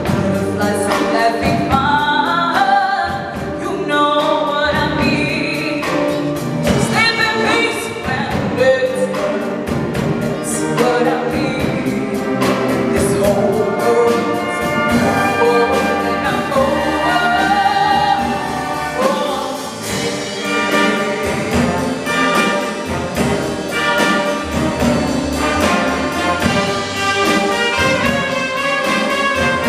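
Jazz big band playing live: trumpets, trombones and saxophones over piano, guitar, double bass and drum kit.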